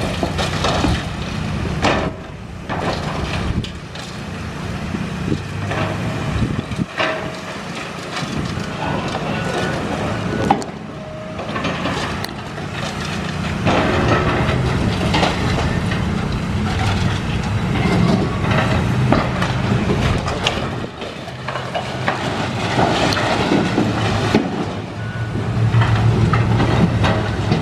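Heavy demolition machine's diesel engine running steadily while it tears down a building, with irregular cracking, crunching and knocks of breaking debris.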